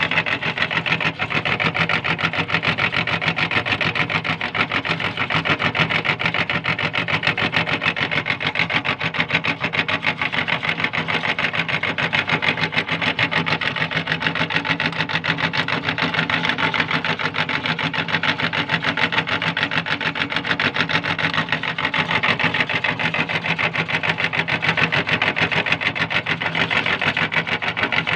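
Meat grinder running steadily while it crushes falsa berries and their seeds: a continuous machine whir with a fast, even rattle.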